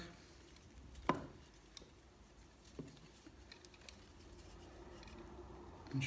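Faint handling of hand tools and electrical cable at a wall socket box, with one sharp click about a second in and a few lighter ticks after it.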